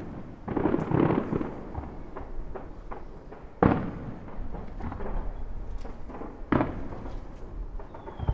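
Fireworks going off: a crackling burst about a second in, two sharp bangs, and many smaller pops between them. Near the end a whistling firework starts, its whistle falling in pitch.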